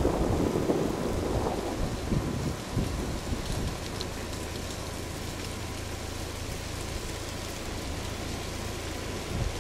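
Wind noise on the microphone outdoors: a low rumble under a steady hiss, gustier and louder in the first two seconds.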